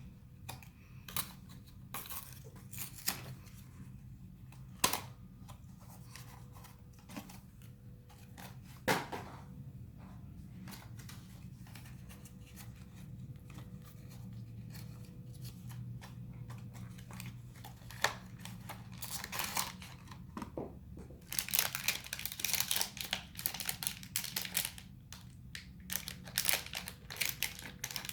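A blind box being opened by hand: scattered taps and clicks of the cardboard box, then near the end a dense run of tearing and crinkling as the wrapper inside is ripped open.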